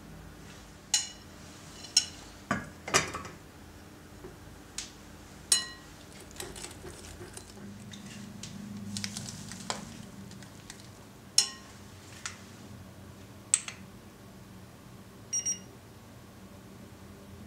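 A metal wire whisk stirs egg and sugar in a glass bowl, warming them over a water bath for a genoise. Sharp, ringing clinks of metal on glass come every second or so at first and again a few times later, with a stretch of softer whisking about halfway in. Near the end come two short electronic beeps from an infrared thermometer.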